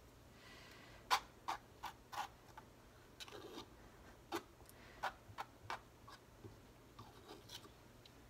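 Palette knife working acrylic paint onto a stretched canvas, with light scraping and a dozen or so light, irregular clicks as the blade taps and drags across the canvas and palette.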